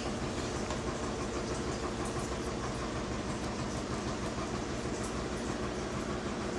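High-efficiency washing machine in its final spin, the drum spinning with a steady mechanical hum and rumble. The load is unbalanced but has not tripped the off-balance sensor.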